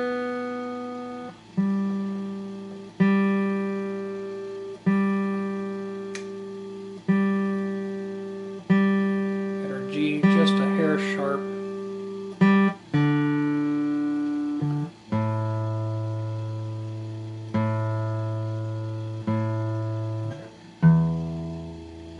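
Guitar strings plucked one at a time and left to ring out while the guitar is checked for tuning. One string is plucked about seven times, then the pitch steps down string by string, and the lowest string is plucked near the end.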